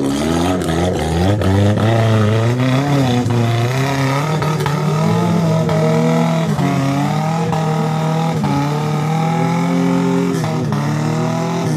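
Daihatsu Feroza 4x4's engine revving hard under load as it climbs a steep rocky track. The pitch rises and falls again and again as the throttle is worked, with a short dip near the end.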